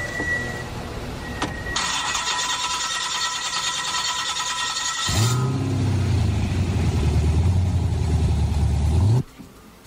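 Car engine being started: a few seconds of starter cranking, then the engine catches about five seconds in, revs up briefly and settles to a low idle. The sound cuts off suddenly near the end.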